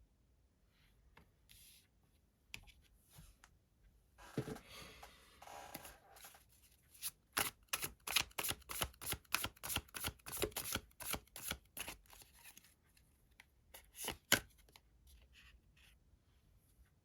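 Tarot cards being shuffled and handled. Soft rustling and sliding give way, about halfway through, to a quick run of card snaps at about four a second, then one sharper snap and a few light taps.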